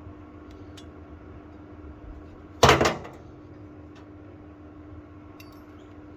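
A single loud clunk of a hard object being handled or set down, about two and a half seconds in, over a faint steady hum.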